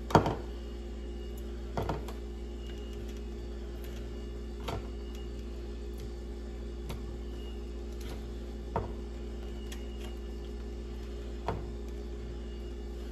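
A few scattered light knocks and clicks of food containers and food being handled on a kitchen counter, the loudest right at the start, over a steady low hum.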